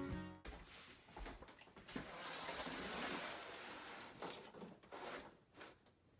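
Seed-starting tray with a clear plastic humidity dome being slid onto a shelf: faint scraping of plastic on plastic with a few light taps and knocks.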